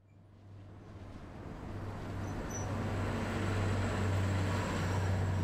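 City street traffic noise with a steady low hum, fading in from silence over the first couple of seconds.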